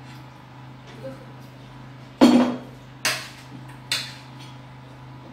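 Tableware clinking during a meal: spoons on plates and glasses on the table. There are three sharp clinks about a second apart, a little past halfway, and the first is the loudest. A steady low hum runs underneath.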